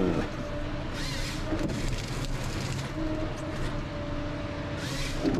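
Ponsse Scorpion King forest harvester running steadily, its engine and hydraulics making an even hum, with two brief hissing noises, about a second in and near the end.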